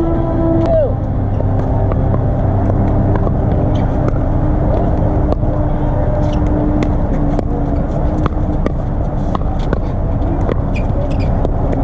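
Sharp pops of pickleball paddles striking the plastic ball, coming irregularly from this and neighbouring courts, over a steady low rumble. A held tone slides down and stops just under a second in.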